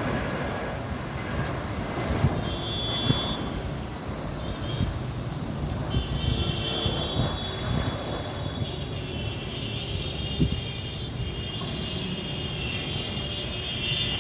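Landing cargo airliner's engines making a steady rumbling roar with a high whine over it. A few short thumps stand out, about two seconds in, three seconds in and ten seconds in.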